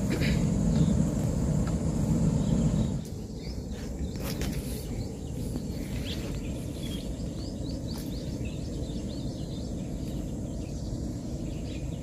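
Outdoor riverbank ambience: a steady low rumble, louder for the first three seconds and then settling, with faint bird chirps and a couple of small clicks.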